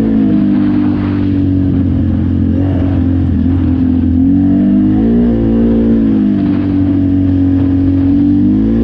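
Quad (ATV) engine running under load, its revs dipping and rising again about five seconds in and once more near the end.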